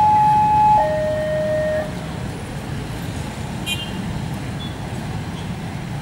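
Level-crossing electronic alarm sounding a loud two-tone high-low signal that switches about once a second, then cutting off about two seconds in as the train clears the crossing. A steady low rumble of the departing train and waiting traffic follows, with one brief high beep near the four-second mark.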